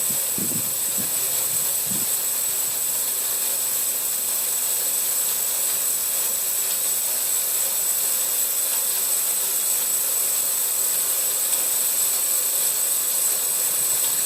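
Home-built bandsaw sawmill running on a dry run with no log in it: a steady hiss with a constant high whine from the spinning blade and wheels, running smoothly.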